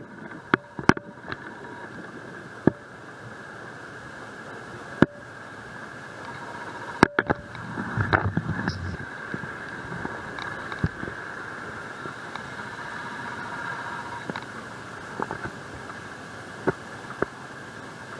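Heavy thunderstorm rain falling steadily, with sharp ticks of drops striking the wet camera. A short low rumble of thunder comes about eight seconds in.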